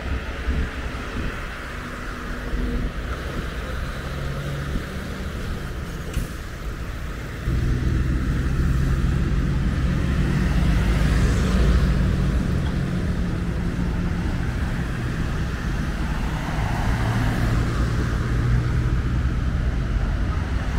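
Road traffic: cars driving past on the street, with tyre noise over a low engine hum. The hum gets suddenly louder about seven seconds in, and a car's tyre noise swells and fades a few seconds later.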